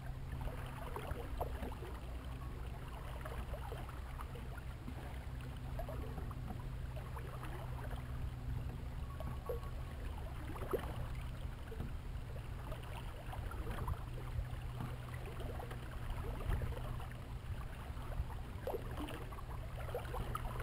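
Water sloshing and splashing along the hull of a small sailboat moving under sail at about 3 knots, with many small irregular splashes over a steady low hum and wind noise.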